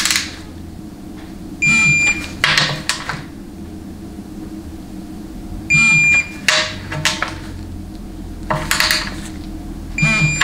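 Digital torque wrench beeping as each transmission oil pan bolt reaches its set torque: three short beeps about four seconds apart, each followed by a quick run of ratchet clicks as the wrench is swung back.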